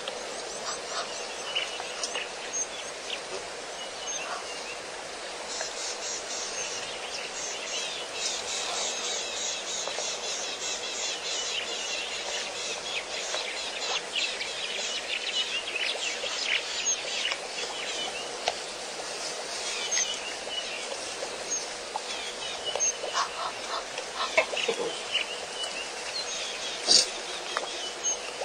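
Many birds chirping and calling at once over a steady outdoor background hiss, the chirping at its busiest in the first half.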